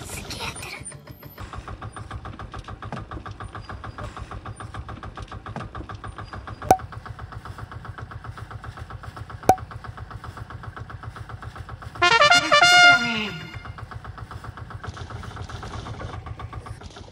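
Small boat engine idling steadily, with two sharp clicks in the middle. About twelve seconds in, a loud tone slides down in pitch for about a second and a half.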